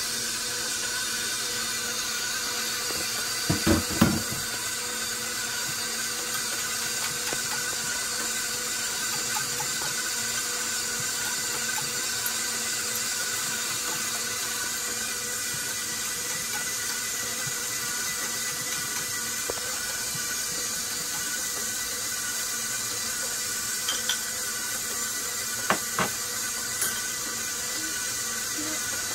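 A 6-quart, 575-watt stand mixer's motor whining steadily as its dough hook kneads bread dough, with a couple of knocks about four seconds in and a few clicks near the end.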